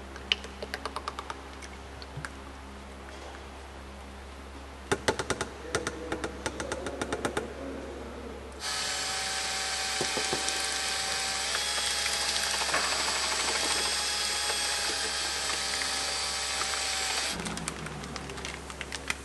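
A run of light clicks and knocks, then a cordless drill with a paddle mixer runs steadily for about nine seconds, stirring CopperCoat's epoxy in a plastic bucket, and stops. More clicks follow near the end.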